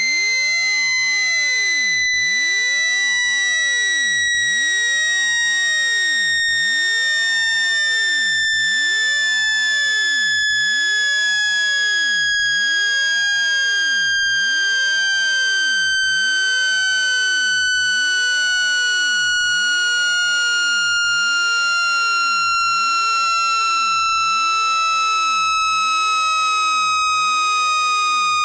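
Synthesized phone-speaker water-eject tone: a single steady electronic tone sliding slowly and evenly downward in pitch. It is meant to vibrate the speaker and push trapped water out.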